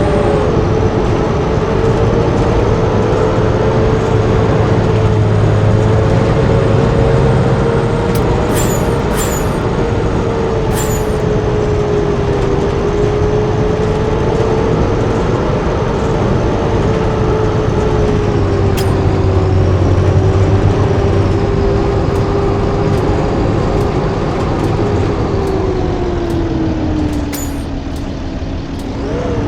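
Blue Bird D3FE bus running under way, its engine note drifting gently up and down, dropping lower near the end and then picking up again. A few sharp clicks sound partway through.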